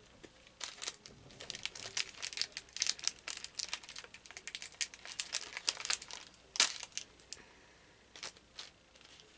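Crinkling and crackling of a Pocky stick snack's plastic inner bag being handled and torn open, in a dense run of small crackles with one sharp louder crack about two-thirds of the way through, thinning to a few scattered crackles near the end.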